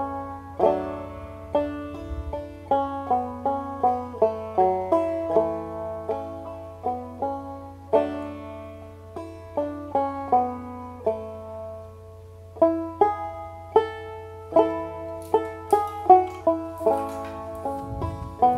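Background banjo music: a quick plucked melody of short, decaying notes, with a steady low hum underneath.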